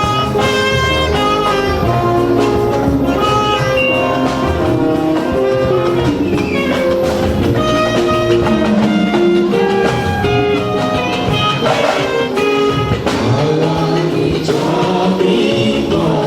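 Band music with held melody notes over a moving bass line and a steady beat.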